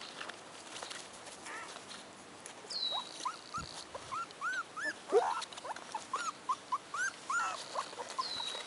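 Four-week-old American Hairless Terrier puppies squeaking and whimpering: a quick string of short, high yelps that starts about three seconds in and keeps on.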